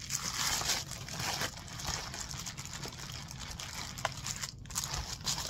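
Wrapping crinkling and rustling as a small wrapped item is unwrapped by hand, with a few short clicks.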